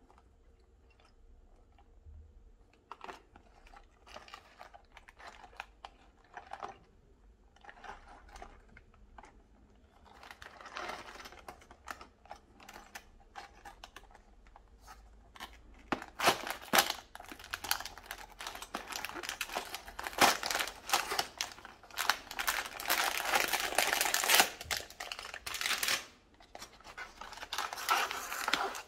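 A thin cardboard LEGO set box being handled and torn open along its perforated flap, then crinkling plastic parts bags pulled out of it. It starts with light taps and rustles and becomes loud tearing and crinkling from about halfway.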